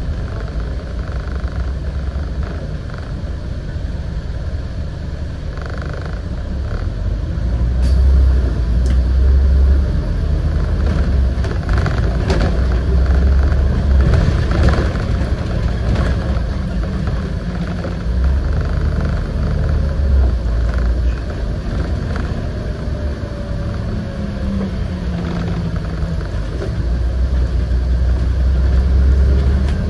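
Scania N94UD double-decker bus on the move, its engine's low drone swelling several times under load and falling in pitch as it eases off, with scattered rattles and clicks.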